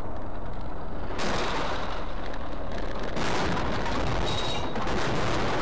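Loud, rough rumble and hiss of road and wind noise from a car driving on a highway, picked up by a dash cam. The hiss gets brighter about a second in and stays steady.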